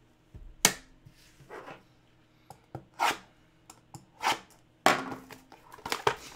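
Folding pocket knife slicing through the tape seals of a small cardboard trading-card box, heard as a few short, sharp cutting strokes, along with knocks of the knife and box on the wooden table.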